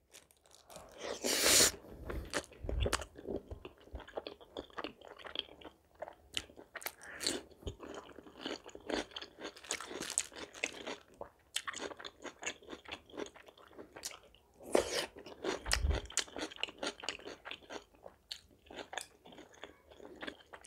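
Close-miked eating: a person biting and chewing butter naan with creamy butter chicken, a dense run of small wet mouth clicks and crunches. It gets louder about a second in and again around fifteen seconds.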